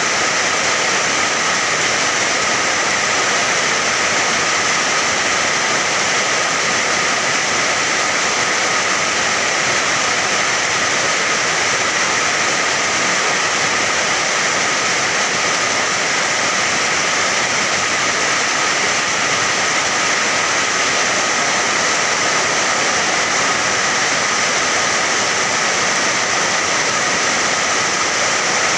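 Steady rain, a dense, even hiss that does not change.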